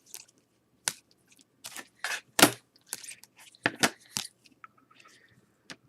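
Trading cards being handled and sorted into piles: an irregular series of short clicks, taps and scrapes of card stock on card and table, with quiet gaps between them.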